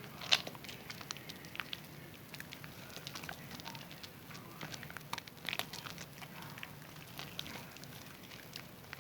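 Zest bar soap being lathered with water: faint, irregular wet crackling and squishing of the foam, with a sharper click about a third of a second in.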